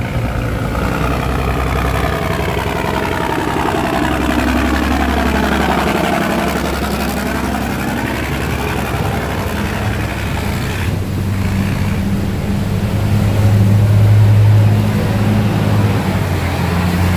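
Diesel engines of river barges running hard as they pass close by, one after another. The engine pitch slides up and down through the first half, then a deep, steady engine hum swells and is loudest about two-thirds of the way through.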